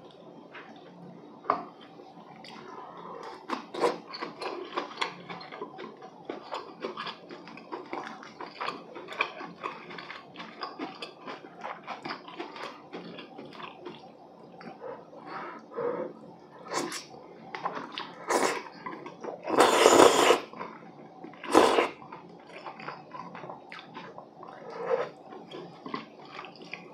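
Close-miked wet chewing and mouth sounds of a person eating braised chicken with glass noodles, with many small clicks and smacks. About two-thirds of the way through come a few louder slurps, the longest lasting about a second.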